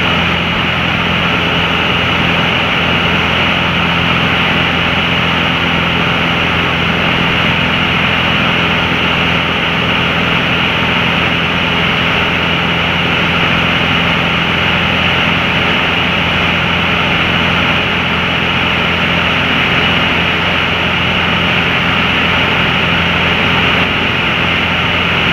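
Small propeller airplane in flight, heard inside the cabin: a loud, steady drone of engine and propeller with rushing air, unchanging throughout.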